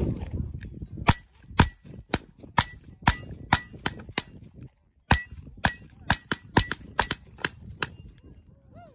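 Rapid gunshots at steel targets, about two a second, each followed by the ring of a struck steel plate, with a short break about halfway before the string goes on.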